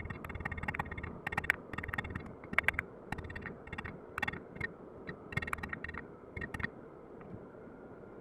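Irregular light metal taps and clinks in small clusters, some ringing briefly, over a low steady hum.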